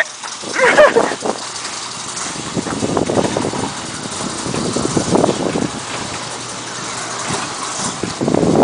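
Motorized overhead roll-up door rolling down: a steady mechanical run that grows louder near the end as the door nears the ground.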